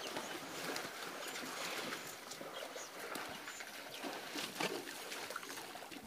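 Elephants splashing and sloshing in a muddy waterhole: irregular wet slaps and trickling water, with faint high bird chirps over it.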